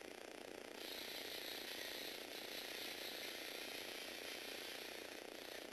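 Small electric motor of a Lego Technic model driving its plastic gears as it moves along, a steady mechanical whir that grows louder about a second in and drops back near the end.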